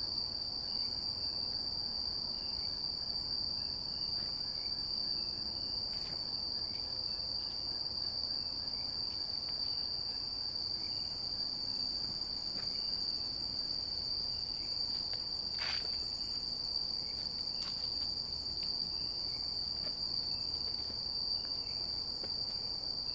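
Chorus of night insects in forest: a steady, high-pitched shrill drone that never breaks.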